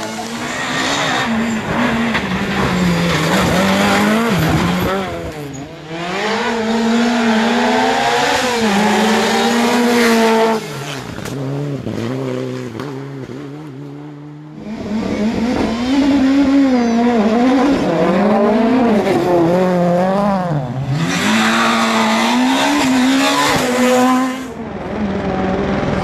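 Rally cars driven hard through corners, one after another: each engine revs high, drops as the driver lifts off and shifts, then climbs again. The sound jumps abruptly from one car to the next a few times.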